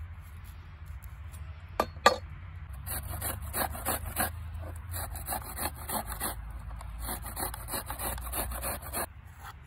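An onion being grated on a box grater standing on a wooden cutting board: quick rasping strokes, about three a second, from about three seconds in until just before the end. Before that, two sharp knocks.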